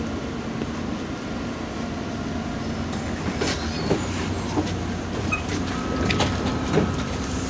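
Inside a MAZ 203 low-floor city bus: the engine drones steadily while the body and fittings rattle and knock. A faint steady whine joins in about six seconds in.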